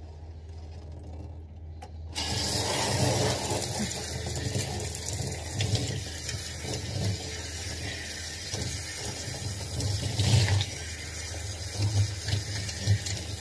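A handheld shower head turns on about two seconds in and sprays water steadily onto hair being rinsed over a bathtub, the water splashing and running off.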